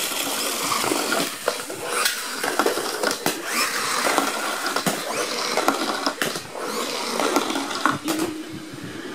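Spring motors of pull-back toy trains whirring as the cars run along a plastic track, with plastic clicks and knocks throughout. The noise dies down near the end.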